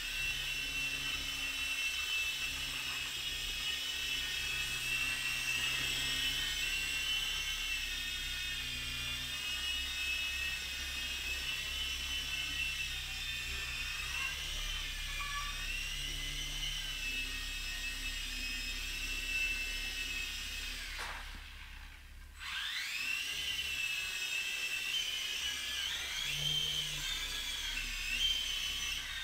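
Blade mCX2 ultra micro coaxial RC helicopter flying: a high whine from its two micro coreless motors and rotors, its pitch wavering as the throttle changes. About 21 seconds in the motors spool down and quickly spin back up.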